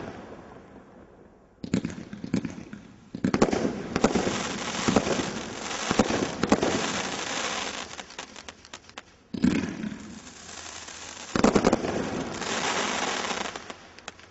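Cat 3 combination Roman candle firing: four sudden shots, each followed by a few seconds of dense crackling. The last one dies away near the end.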